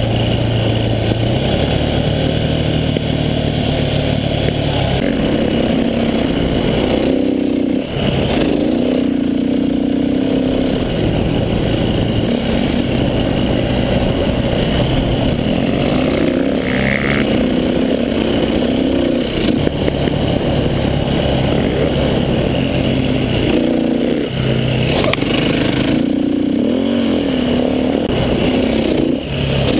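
KTM dirt bike engine running under throttle while riding over sand dunes, its pitch rising and falling as the rider revs and eases off, with a few brief drops in level.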